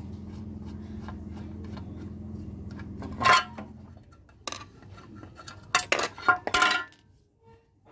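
Metal tools and parts of a small overlock sewing machine clinking and knocking as its side cover is taken apart: one loud knock a little after three seconds and a quick run of clinks around six seconds. A steady low hum sounds under the first four seconds and then stops.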